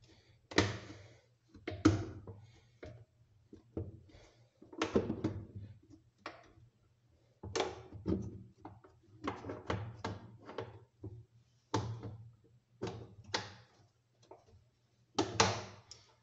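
Plastic knocks and thuds from the lid of a Fluval 306 canister filter being worked and pressed down onto the canister body, about twenty irregular hits in a row.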